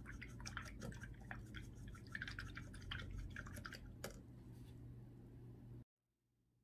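Paintbrush being swished and dipped in a small glass cup of water, with many small clicks of the brush against the glass and light drips. It cuts off suddenly near the end.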